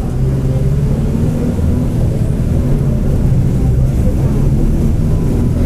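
Mercedes-Benz OF-1722M bus running, with a steady low engine drone and a faint steady whine above it: the growl of a noisy differential.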